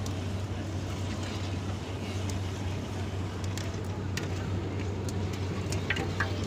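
A steady low hum over an even background noise, with a few light clicks of a ladle against a copper kadhai near the end.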